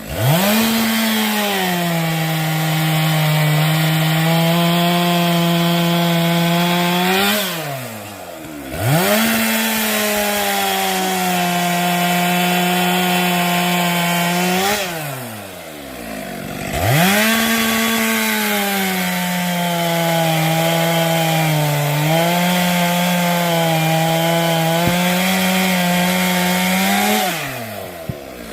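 Two-stroke chainsaw cutting through a log three times. Each cut starts with a sharp rev, the engine pitch sags and holds steady while the chain bites into the wood for about six or seven seconds, and the pitch flares briefly as it cuts through before the throttle is released.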